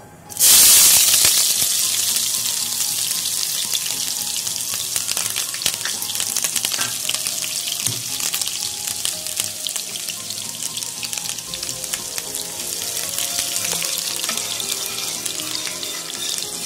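Chopped onion dropped into hot oil and cumin seeds in a steel kadhai: a sudden loud sizzle about half a second in, settling into steady frying sizzle that eases slowly.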